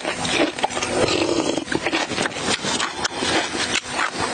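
Close-miked slurping of spicy hot and sour soup from a small bowl, with wet chewing, and a breathy huff from the chilli heat near the end.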